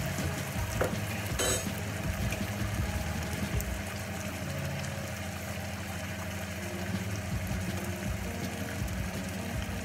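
Pot of spaghetti boiling and tomato sauce simmering on the hob over a steady low hum, with two light clicks of a utensil against a pot in the first two seconds.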